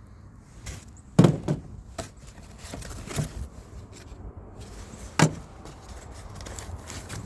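Handling noise: scattered clicks and knocks of objects being moved and set down, with a louder knock about a second in and another about five seconds in.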